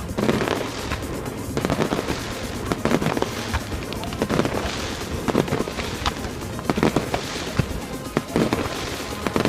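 Fireworks display: aerial shells going off in quick, irregular bangs, several a second.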